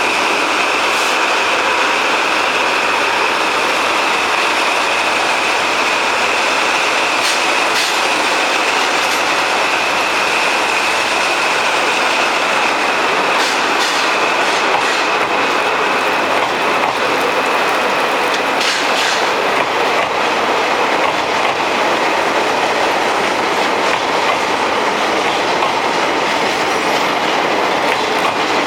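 Hokutosei sleeper express's passenger cars rolling steadily past, wheels clicking over the rail joints. A high steady wheel squeal runs through the first twenty seconds or so, then fades.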